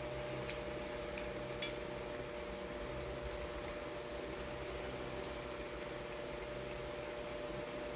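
Steady mechanical hum, like a fan or household appliance running, with a few faint clicks, the sharpest about a second and a half in.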